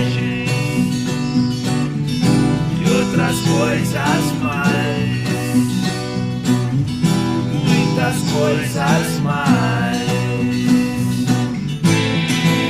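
Instrumental passage of a caipira-flavoured song: viola caipira and acoustic guitar playing, with a gliding melody line over them. The sound turns brighter and fuller near the end.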